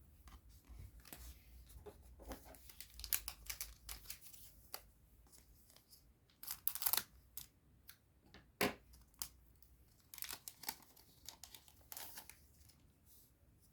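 Foil wrapper of a trading-card booster pack crinkling and tearing, with the cards rustling as they are handled, in irregular crackly bursts.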